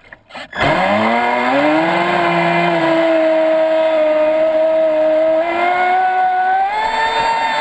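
Traxxas Spartan RC speedboat's brushless electric motor whining up quickly from a brief near-stop, then holding a steady high whine at speed. Near the end its pitch steps up as the throttle opens further.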